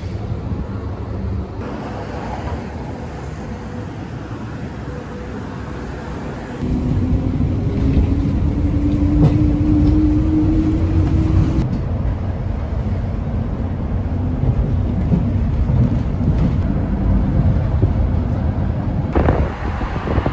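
City bus underway, heard from inside the cabin: a steady low rumble of engine and road noise, with a faint whine rising slightly in pitch for a few seconds. The first few seconds are quieter street traffic, before the bus noise gets louder.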